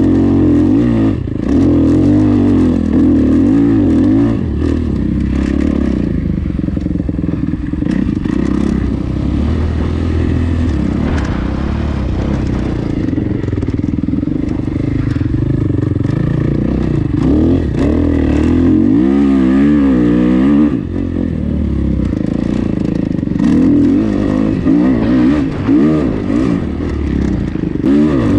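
Motocross dirt bike engine under hard throttle, its pitch repeatedly rising and falling with throttle and gear changes. The bike backs off briefly about two-thirds of the way through.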